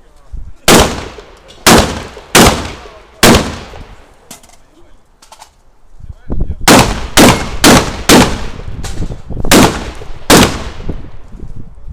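Shotgun fired in quick strings: four loud shots about a second apart, a pause of about three seconds, then six more shots in a faster burst, each with a short echoing tail.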